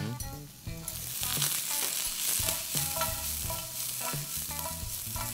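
Vegetables frying in a hot pan while being stirred. The sizzle swells sharply about a second in and then holds steady.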